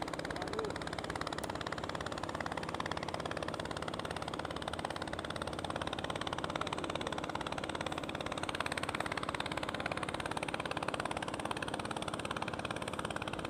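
Small boat's motor running steadily at low revs, an even engine drone with a rapid fine pulse that holds constant throughout.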